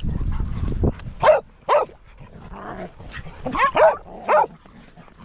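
A dog barking, five short barks in two groups: two about a second in, then three near the end. A low rumble on the microphone comes first, during the opening second.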